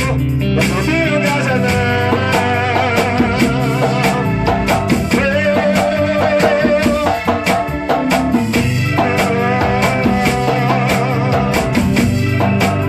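Band music with drum kit, bass and guitar playing a steady, busy beat under a wavering melody line.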